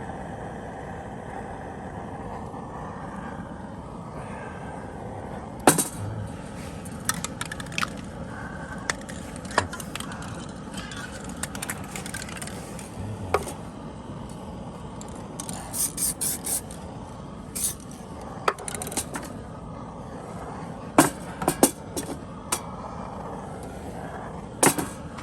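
Scattered sharp clicks, knocks and short scrapes of tools and parts being handled, with a quick rattling cluster partway through, over a steady outdoor background hum.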